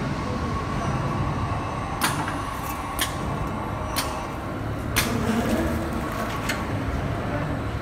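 Horizontal orbital stretch wrapper running as it wraps a long package in stretch film: a steady machine hum with a faint high whine, and five sharp clicks, most about a second apart.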